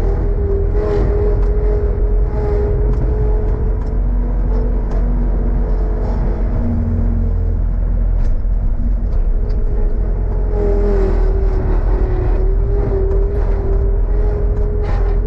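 A vehicle engine running steadily, with a constant low rumble and a steady hum.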